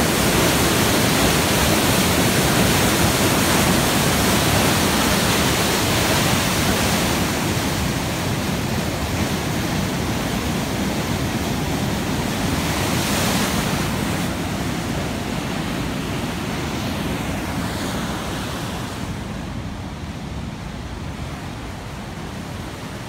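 Water rushing through a dam's sluice, a steady roar of churning whitewater that slowly fades.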